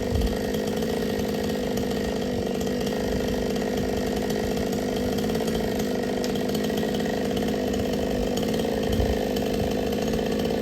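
Chainsaw engine running at a steady high speed, holding one even pitch without letting up.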